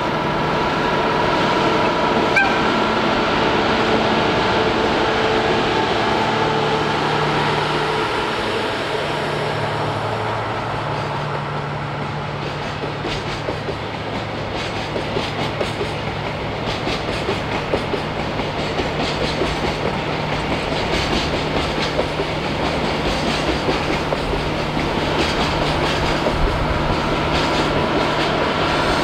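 A diesel train running past, its engine note humming steadily with a few shifts in pitch, and its wheels clicking over the rail joints through the middle and later part.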